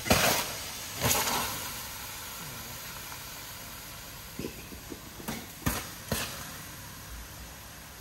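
Water sprayed onto a hot car engine to put out an engine-bay fire, hissing as it turns to steam. Two loud bursts of spray come in the first second and a half, then a steady hiss that slowly fades, with a few sharp knocks partway through.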